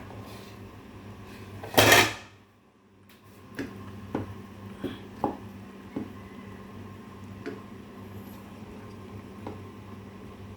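Cookware and utensils clinking and knocking a handful of times, separately, over a steady low hum, after one loud short burst of noise about two seconds in.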